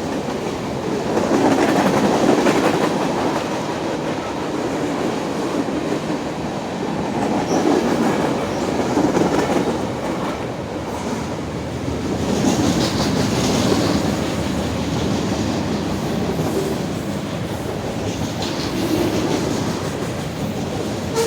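CSX freight train's cars rolling past at close range: a steady rumble of steel wheels on rail that swells and eases every few seconds as the cars go by.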